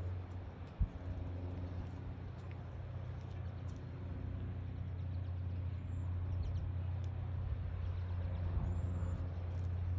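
A steady low motor hum with a single thump about a second in and a few faint high chirps over it.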